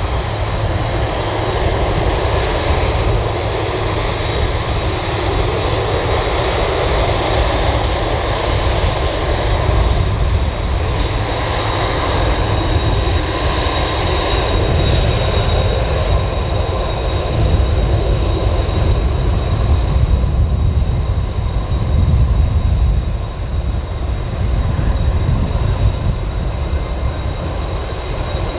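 Boeing 747's four jet engines running as the airliner taxis and turns onto the runway: a steady rumble with a high, steady whine above it.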